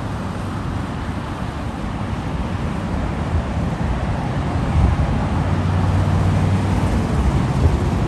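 Rumbling roar of an Airbus A350-900's twin Rolls-Royce Trent XWB jet engines as the airliner lands and rolls away, steady and growing somewhat louder in the second half, with wind on the microphone.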